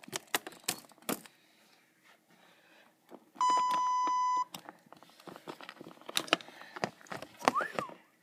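A censor bleep: one steady beep about a second long, blanking out a swear word. Before and after it come light clicks and taps of small plastic toy figures being handled on a playset.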